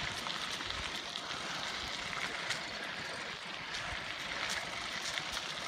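Steady rushing noise of bicycle tyres rolling along a paved trail scattered with fallen leaves, with a few faint clicks.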